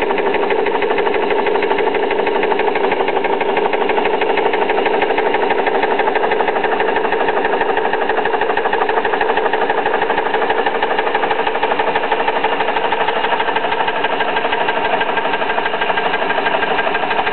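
Homemade outboard steam engine running steadily, its piston and crank going at a fast, even beat while it turns a propeller in a tub of water.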